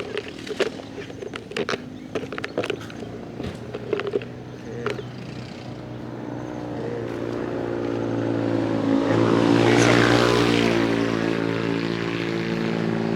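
Several sharp clicks and knocks in the first few seconds, then a vehicle engine approaching, loudest about ten seconds in, and easing slightly as it passes.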